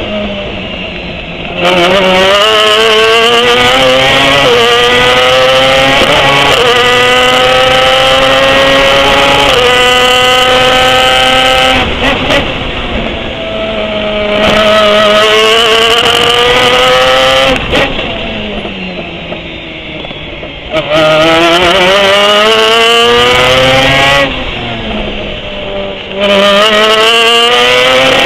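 Pro Mazda open-wheel race car engine heard onboard at full throttle. Its pitch climbs through each gear and drops sharply at each upshift. It goes quieter several times as the driver lifts and brakes for corners.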